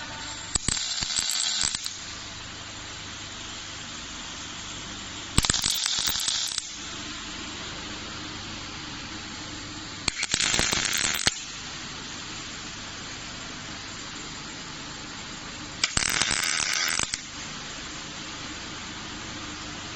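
Robot arm welding short seams: four separate welds of about a second each, roughly five seconds apart, each a harsh hiss that starts and stops abruptly, over the steady hum of the cell.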